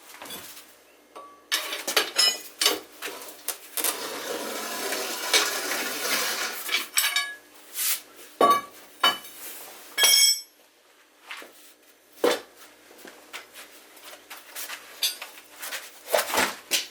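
Metal tools and bike parts clinking, knocking and scraping as they are handled, with a stretch of scraping and rustling about four seconds in and a ringing metal clink around ten seconds in.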